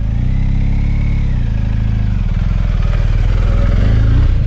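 Beta 390RR single-cylinder four-stroke enduro engine running on a trail ride. The revs rise through the first second, ease off, then climb again near the end.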